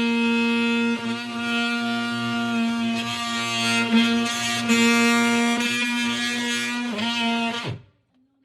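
DeWalt oscillating multi-tool cutting into the base of a cupboard. It makes a loud, steady buzzing tone whose pitch dips briefly as the blade bites, then it is switched off and winds down near the end.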